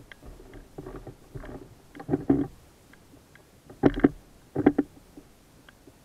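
Irregular knocks, thumps and rustling of a person moving about and handling gear in an inflatable boat, loudest in short clusters about two seconds in and around four seconds in; the outboard is not yet running.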